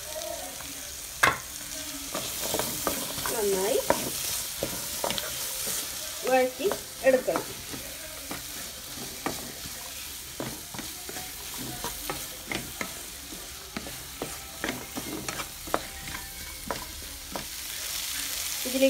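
Wooden spatula stirring chopped shallots frying in a non-stick pan: a steady sizzle with frequent clicks and scrapes of the spatula against the pan as the onions are sautéed with spices.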